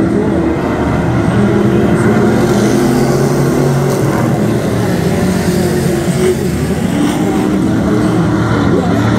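Several street stock race cars' engines running together as the pack circles the track, with overlapping engine notes that shift in pitch as the cars go by.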